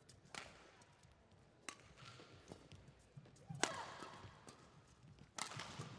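Badminton shuttlecock struck by rackets during a doubles rally: four sharp hits over about five seconds, the loudest about midway.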